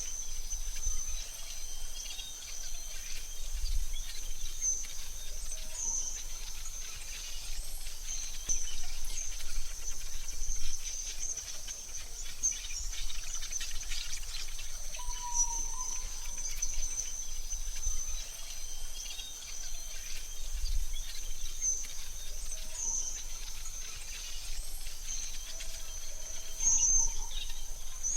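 AI-generated forest ambience: a steady high insect drone throughout, with a few short bird chirps, one near the middle and another near the end.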